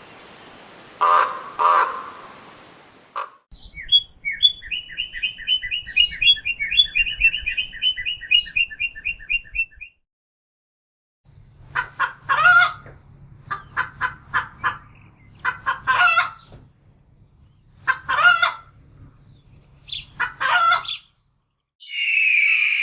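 Two hoarse raven croaks over faint hiss, then a cardinal's song: a long run of rapid, evenly repeated chirps. After a short gap a rooster calls several times, and near the end an eagle's high cry begins.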